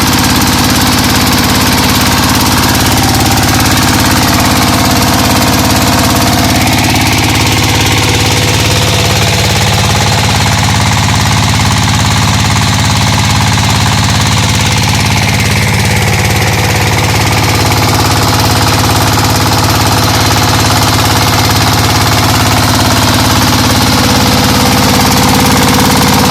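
ZS1125 single-cylinder diesel engine running steadily with a rapid, even knocking beat, warming up after its camshaft gear was re-timed to cure misfiring and backward turning. It cuts off suddenly at the end.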